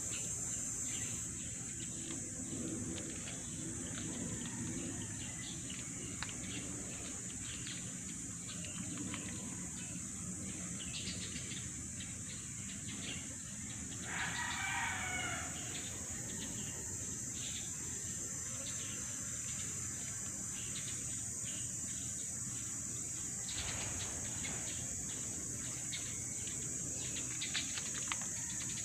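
A steady high insect drone runs throughout, with scattered small bird chirps. About halfway through, a rooster crows once for about two seconds.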